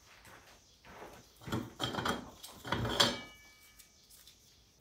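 Steel clutch plates and snap rings from a 6L90E transmission clutch pack being handled, a few clanks and scrapes of metal on metal, during clutch pack teardown. About three seconds in, one piece rings briefly at a clear pitch.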